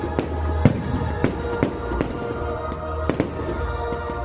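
Aerial firework shells bursting in about ten sharp, irregularly spaced bangs, the loudest under a second in, over music with a steady bass playing through the display's sound system.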